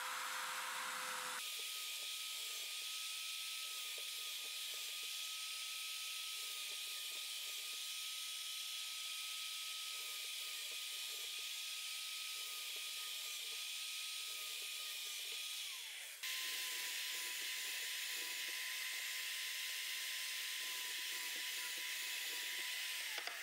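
Benchtop drill press running with a countersink drill bit, boring countersunk screw holes in plywood strips: a steady high motor whine over a hiss. The whine winds down in pitch about two-thirds of the way through, then starts again slightly lower and winds down once more near the end.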